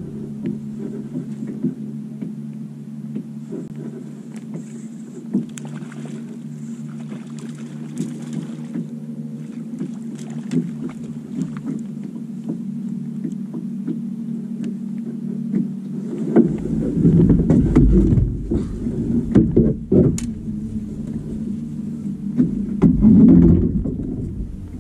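Boat motor running steadily, a low even hum. About two-thirds of the way through, heavy low rumbling and scattered knocks come in over it.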